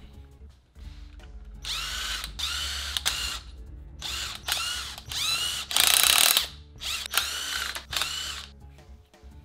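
Cordless power tool run in about ten short bursts, each under a second, spinning out the cover bolts of a BMW E28 differential. Quiet background music runs underneath.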